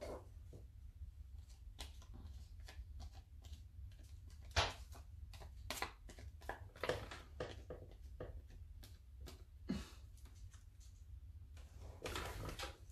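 Scattered light clicks and rustles of paper and craft materials being handled on a work table, with one sharper knock about four and a half seconds in and a longer rustle near the end.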